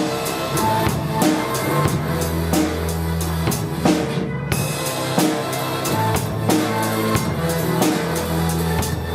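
Drum kit played along with a pop-rock backing track: bass drum, snare and rim shots in a steady groove over bass and keyboard lines, with a brief break in the cymbals about four seconds in.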